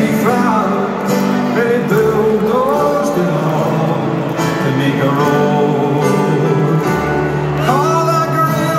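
Live solo performance through a stadium sound system: a man singing a slow folk-style song over strummed acoustic guitar.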